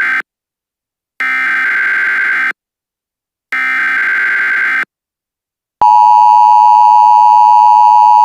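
Emergency Alert System tones: the end of one digital SAME header burst, then two more buzzy data bursts of about a second and a half each, separated by about a second of silence. About six seconds in, the long steady two-tone EAS attention signal starts and holds.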